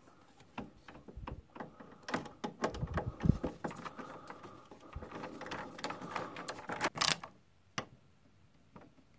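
A screwdriver turning the terminal screw on a breaker panel's neutral/ground bus bar to clamp the copper ground wire: a quiet run of irregular small metal clicks and scrapes, ending with a sharper click about seven seconds in.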